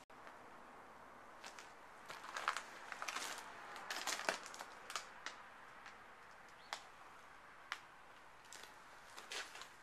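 Footsteps crunching over a debris-strewn floor of broken tiles and grit: quiet, irregular crunches and clicks.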